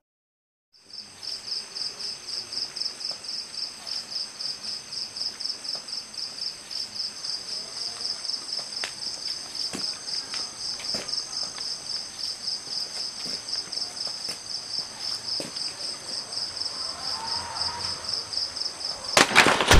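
Crickets chirping at night in a fast, even pulse, starting about a second in after a moment of silence, with faint scattered ticks. A sudden loud burst of clatter near the end.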